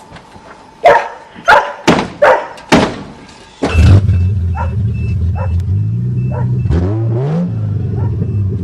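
A dog barks about five times, then the 1982 Toyota Cressida's fuel-injected engine starts again after stalling and runs steadily, with a brief rev about seven seconds in. A faint pulsing beep sounds over the running engine.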